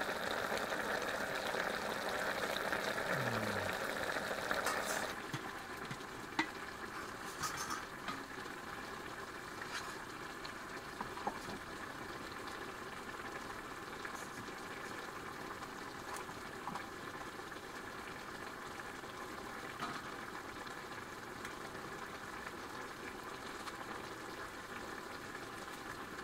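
Vegetable curry bubbling in a wok over a wood fire, a steady simmering hiss that drops to a quieter hiss after about five seconds, with scattered small clicks.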